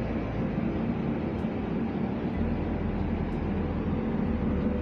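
Electric locomotive at the head of a passenger train, humming steadily, with a low drone that shifts in pitch a couple of times, over a hiss of background noise.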